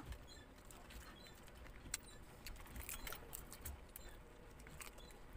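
Faint close-up eating of cooked crab by hand: wet chewing, lip smacks and finger sucking, with irregular small clicks as the shells are picked apart.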